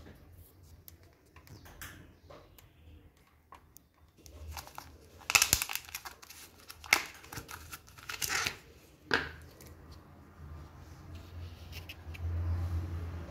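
Thin clear plastic food tubs being handled and a snap-on lid pried off, with a few sharp plastic crackles and snaps in the middle.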